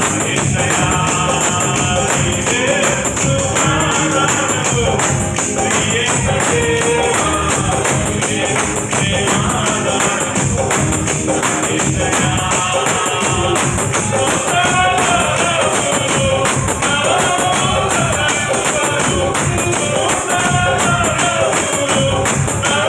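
A man sings a Telugu Christian worship song into an amplified microphone over a steady, jingling percussion beat, with hands clapping in time.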